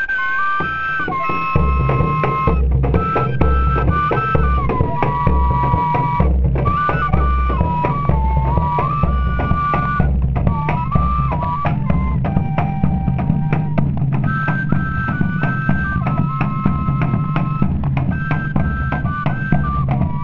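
Pífano (fife) band music: two fifes playing a melody together in parallel over a steady drum beat, the drums coming in about a second and a half in.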